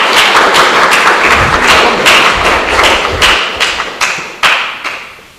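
A loud burst of irregular claps and thumps from a studio audience reacting to a correct answer, with some deep thuds in the middle, dying away near the end.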